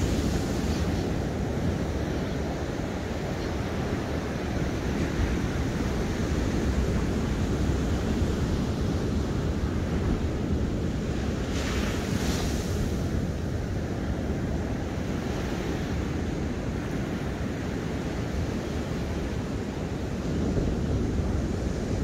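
Ocean surf washing onto the beach as a steady low rumble, with wind on the microphone. The hiss of a breaking wave brightens briefly about halfway through.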